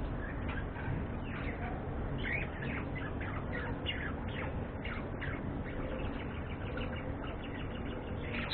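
A flock of budgerigars chirping and chattering: a busy run of many short, quick calls overlapping one another over a steady low hum.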